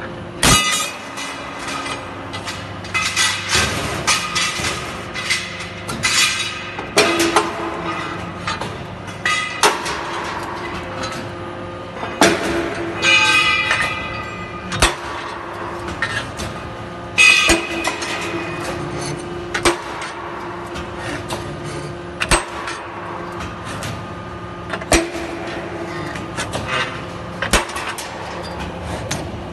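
Automatic hydraulic punching and cutting machine working steel angle: sharp metal clunks and clanks of punch, clamps and feed at irregular intervals over a steady hum, with a few longer stretches of metallic scraping as the steel moves through.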